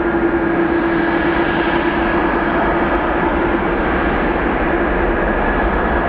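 Boeing 787-9 twin jet engines idling while the airliner holds short of the runway: a steady, even rush with a constant hum.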